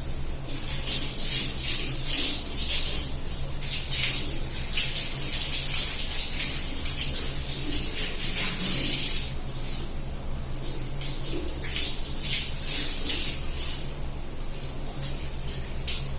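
Water running from a tap onto hair and splashing unevenly during a hair wash, over a steady low hum.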